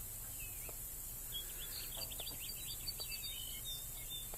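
Wild bird chirping outdoors: a quick run of short, high chirps starting about a second in and carrying on to near the end, over a steady faint hiss, with a few faint ticks.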